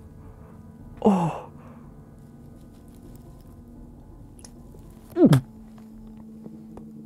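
A man groaning twice in disgust, each a short "ugh" falling in pitch, the first about a second in and the second about five seconds in. Between them is a faint steady hum.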